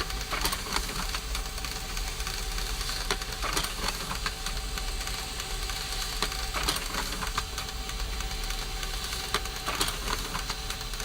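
Computer printer printing paper: a steady mechanical whir with frequent clicks and rattles of the print mechanism.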